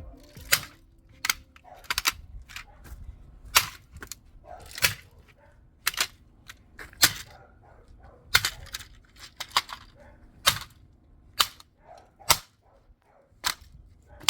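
Repeated hammer blows on a plastic digital alarm clock under a fiberglass cover: a long, irregular series of sharp knocks, about two a second.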